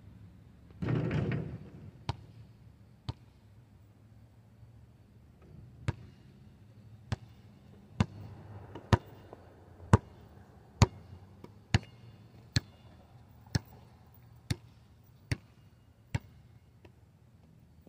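Basketball bouncing on asphalt: a couple of bounces early on, then a steady dribble of about a dozen sharp bounces, roughly one a second, stopping near the end. A short rattle about a second in, as a shot strikes the portable hoop.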